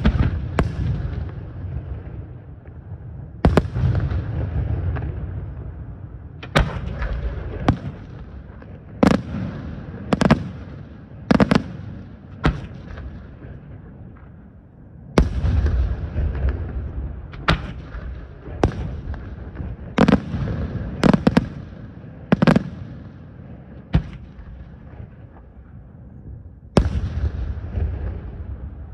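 Aerial fireworks shells bursting in the sky: sharp bangs about once a second, each followed by a low rumbling echo, with a short lull past the middle.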